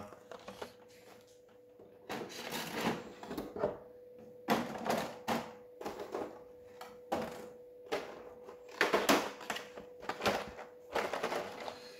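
Plastic clicks and rustling of board-game miniatures and their packaging being handled, in irregular bursts.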